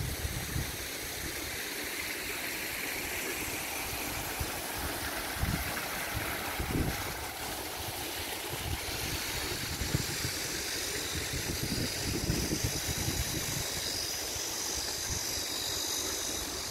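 Steady rush of falling water from a small rock waterfall feeding a garden pond, broken by irregular low rumbles of wind on the microphone. A steady high hiss joins about halfway.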